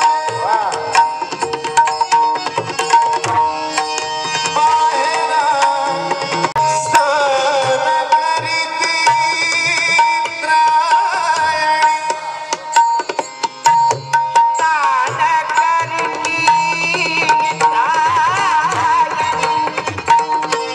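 Marathi devotional bhajan: a melody that bends in pitch, sung or played, over steady tabla strokes, with one note held steadily underneath like a drone.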